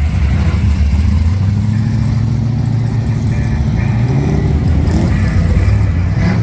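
Quad-turbocharged VL Holden Commodore's engine running with a low steady note, its pitch rising about four seconds in as it is revved.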